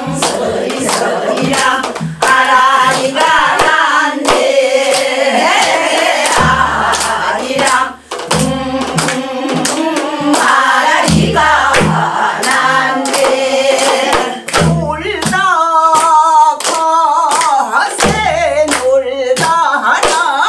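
A group of elderly women singing a Korean folk song together with a wavering vibrato, clapping their hands to the beat.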